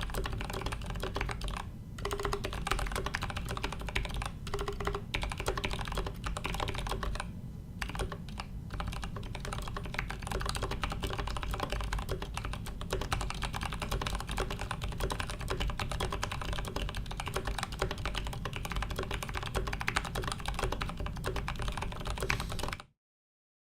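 Fast continuous typing on a Leopold FC660M mechanical keyboard with lubed 67g Zealios tactile switches, steel plate in an aluminium case, foam-dampened, giving a dense stream of muted key clacks. Brief pauses come about 2 s and 7 to 8 s in, and the sound stops abruptly just before the end.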